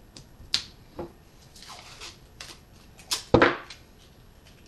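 Adhesive tape being handled: a few light clicks and taps, then a short loud rip of tape with a thump about three seconds in.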